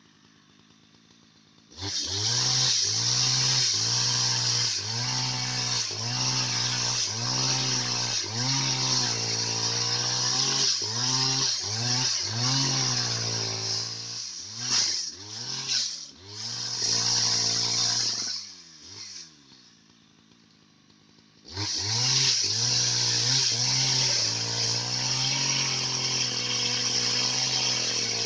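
Husqvarna 570 two-stroke chainsaw ripping a log lengthwise into square timber at full throttle, its pitch dipping and recovering over and over as the chain bites into the wood. It comes up to full throttle about two seconds in, falls quiet for about three seconds past the middle, then cuts at full throttle again to the end.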